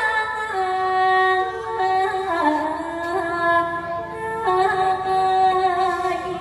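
A woman's voice singing a slow Thai sepha melody in likay style, solo and without audible accompaniment, holding long notes that step down and waver with ornaments.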